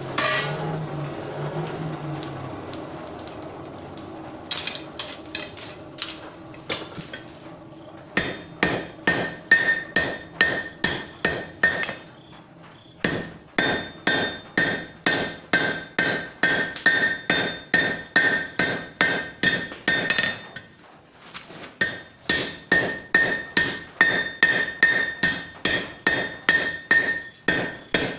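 Blacksmith's hand hammer striking a red-hot steel poker bar on an anvil: a few light taps, then quick, even runs of blows at about two to three a second, each with a bright metallic ring. The runs break off twice briefly.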